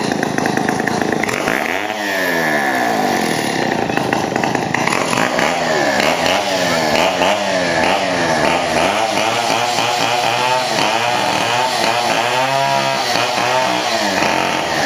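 Two-stroke chainsaw running, its engine revving up and dropping back again and again, more often in the second half.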